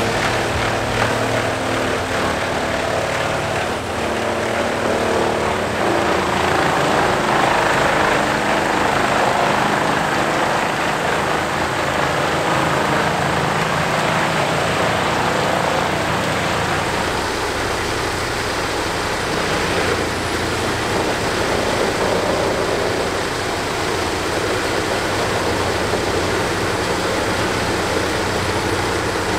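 Bandit whole tree chippers running under load, a loud steady drone of the diesel engine and cutter drum as whole trees are fed through. The drone shifts a little as the scene changes from one machine to the next.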